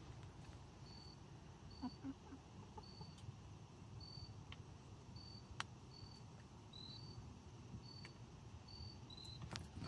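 Faint, regular chirping of crickets: short high chirps about one every second, one chirper slightly lower than the other. A few soft low clucks from the silkie chickens about two seconds in.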